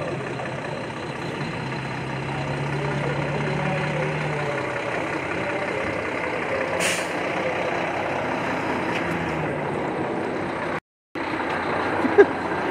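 Steady outdoor background noise on an airfield, with a low hum that fades out about five seconds in. A brief drop to silence comes near the end, at a cut in the video.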